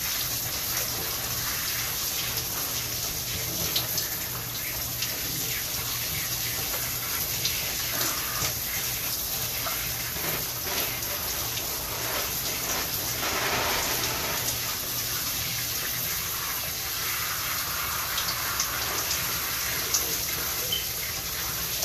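Shower spray running steadily over a person's head as a hair treatment is rinsed out of the hair, with scattered small splashes.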